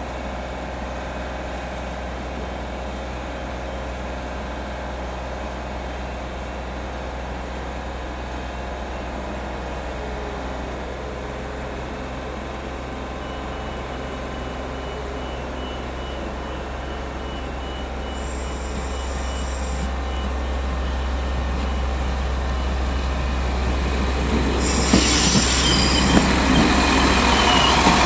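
Irish Rail 22000 class diesel multiple unit approaching with a steady low drone that grows louder over the last ten seconds. It then passes close by with a loud rush of wheel and rail noise and sharp clacks from the bogies. A faint, steady high whine runs through the middle of the approach.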